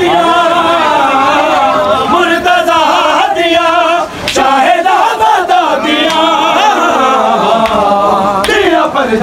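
Crowd of men chanting a noha (Shia mourning lament) together at a matam gathering, several voices with wavering pitch layered over one another. A few sharp smacks cut through, the clearest about four seconds in and again near the end.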